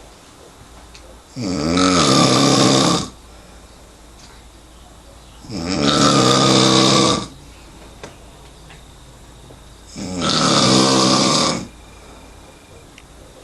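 A man snoring loudly in his sleep: three long snores about four seconds apart, each lasting about a second and a half, with quiet gaps between.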